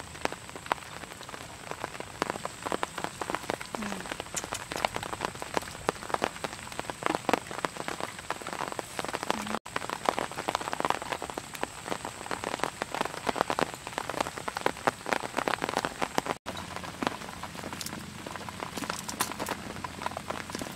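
Skewered fish grilling over wood embers: dense, continuous sizzling and crackling. It cuts out abruptly for a moment twice.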